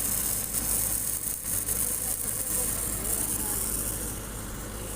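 An engine running steadily at idle with a constant low hum, overlaid by a high hiss.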